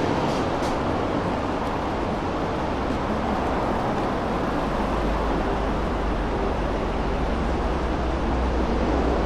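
Busy city street ambience: a steady wash of traffic noise, with a deep vehicle rumble that grows stronger about halfway through.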